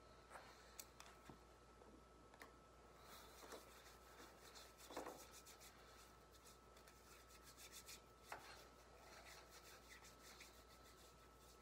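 Faint hands rubbing together, palm on palm, with a few small clicks and knocks scattered through it.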